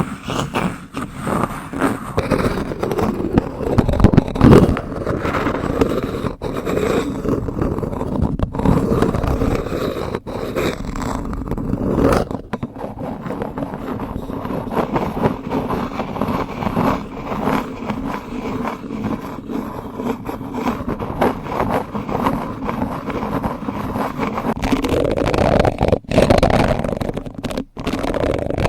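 Spoons scraping and rubbing in a continuous, dense scratching, with many small clicks mixed in, as an ASMR spoon trigger.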